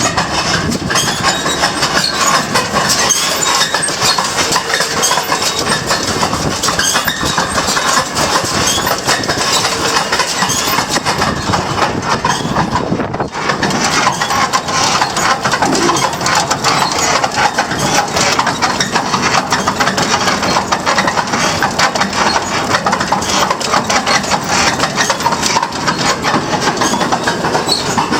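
New Holland 688 round baler running, a steady dense mechanical clatter of its driven parts with the tractor engine running under it. The sound breaks briefly about thirteen seconds in.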